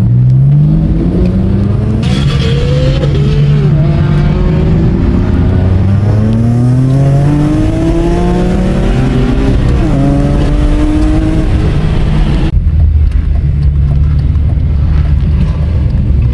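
BMW M3 race car engines accelerating, their pitch climbing again and again through the gears, with several engine notes overlapping. About twelve seconds in, the sound changes abruptly to a steady low engine rumble.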